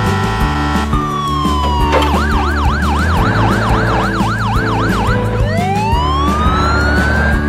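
Cartoon siren sound effect over background music: a fast wail swinging up and down about three times a second for about three seconds, then a single long rising glide near the end.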